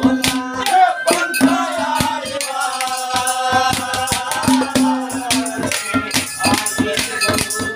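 A man's voice singing a devotional bhajan, accompanied by clay pots (ghara) struck by hand as drums and a rattling percussion instrument, all in a quick, steady beat.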